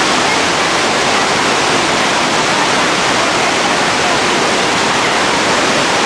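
Iguazu Falls: a steady, loud rush of white water plunging over the cliff into the misty gorge below.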